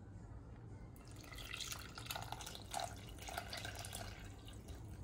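A mixture of milk, melted butter and egg being poured from a bowl into a well in flour in a steel mixing bowl: faint pouring and dripping, starting about a second in.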